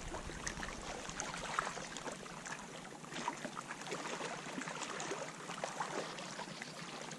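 Small waves lapping and splashing against a rocky lake shore, a steady wash with many small irregular splashes.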